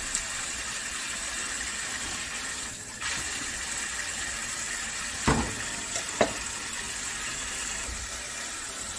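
Kitchen tap running into a steel bowl in a stainless-steel sink as a bell pepper is rinsed under the stream. Two sharp knocks come about five and six seconds in.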